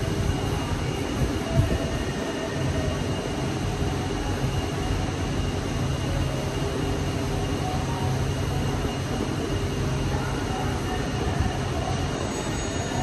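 Steady rumble and hum of workshop machinery, with a short knock about one and a half seconds in.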